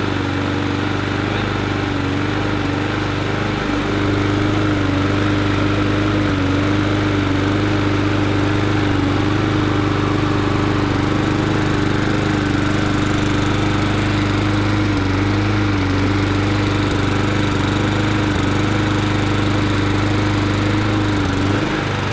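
Mountfield SP470 self-propelled petrol lawnmower engine running steadily at an even pitch while its newly fitted drive cable is tested. The engine stops near the end.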